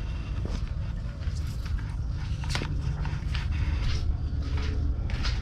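Wind buffeting the microphone as a steady low rumble, with a scatter of small clicks and knocks from fishing rods and gear being handled.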